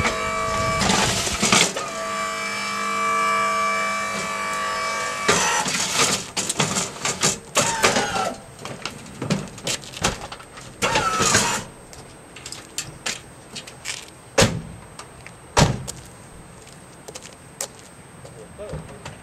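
A lift trolley's motor whines steadily for about five seconds. Then comes clattering and knocking as the trolley is pushed into the van's cargo space, followed by two heavy slams as the van's rear doors are shut.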